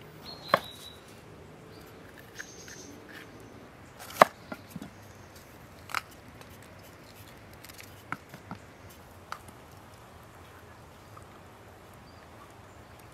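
A kitchen knife knocking on a wooden cutting board as peppers are cut, a few sharp, well-spaced knocks, the loudest about four seconds in.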